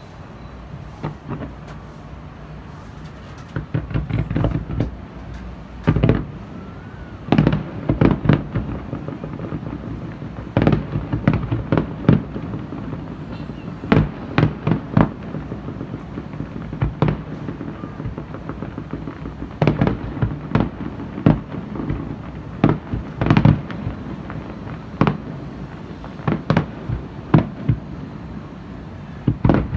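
Aerial fireworks shells bursting: a long string of sharp bangs and booms at irregular spacing, at times several a second, over a steady low background rumble.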